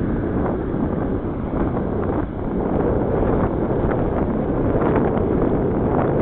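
Wind buffeting the microphone of a bicycle-mounted camera as the bike rides downhill, a loud steady rush with a few light ticks and rattles.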